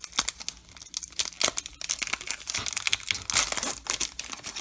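Shiny wrapper of a 2022 Topps Chrome baseball card pack crinkling and tearing as it is handled and ripped open across the top: a dense run of sharp crackles, busiest in the second half.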